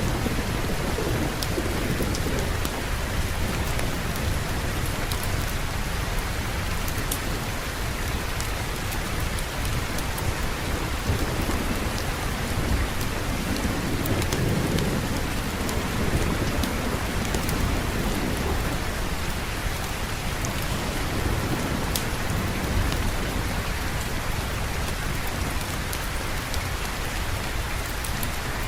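Steady heavy rain with low rolling thunder rumbling under it, swelling about halfway through.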